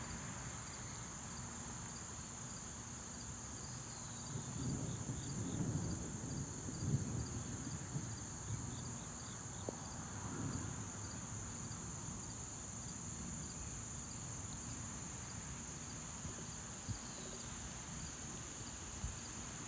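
Steady, high-pitched insect chorus throughout, with a low rumble of distant thunder that swells from about four seconds in and dies away about eleven seconds in.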